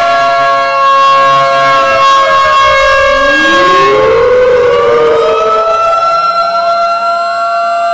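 Several sirens sounding at once, loud and layered: steady held siren tones with wailing sirens over them whose pitch glides up and down and crosses, including a civil-defence-style warning siren winding up in the middle.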